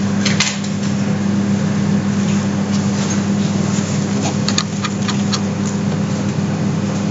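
Steady low room hum with an even hiss behind it, and a few faint clicks scattered through.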